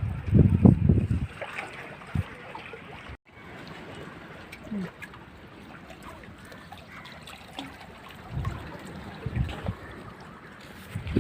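Sea water sloshing and trickling, with low gusts of wind buffeting the microphone at the start and again near the end.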